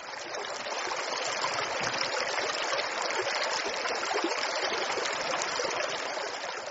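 Steady rushing of a running stream, swelling in over the first second.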